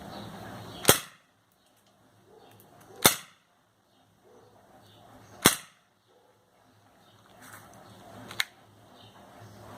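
Full-metal gas blowback airsoft gun firing four single shots, each a sharp crack two to three seconds apart; the last is a little weaker.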